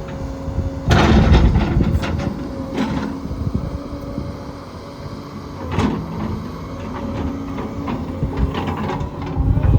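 Volvo EC220E hydraulic excavator's diesel engine running with a steady hum. Its sound rises sharply about a second in, with scattered clanks and knocks after that.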